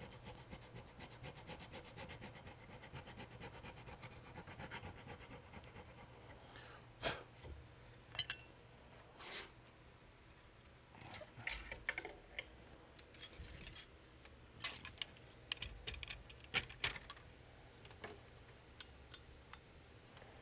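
Hand file working a walnut insert in quick, light strokes for the first several seconds, then scattered clicks and knocks as the wood and tools are handled.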